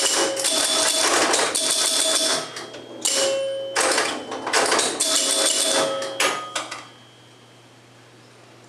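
A 1974 Bally Champ electromechanical pinball machine in play: rapid bursts of clattering from its relays, solenoids and score reels, mixed with ringing scoring tones. The bursts stop about two-thirds of the way through, leaving a low hum.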